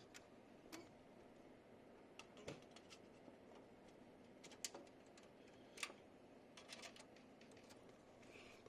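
Faint scattered clicks and light knocks of a USB cable being handled and plugged into a computer.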